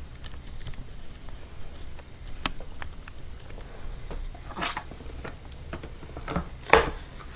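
Cardboard shipping box being handled: scattered light taps and rustles of the flaps and inserts, with one sharper knock near the end.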